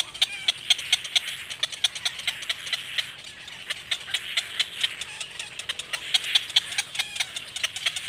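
Nestlings begging at the nest: a rapid, irregular clicking chatter, several clicks a second, over a steady hiss, while the parent feeds them.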